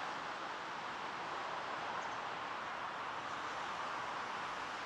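Steady outdoor background rush with no distinct sounds standing out.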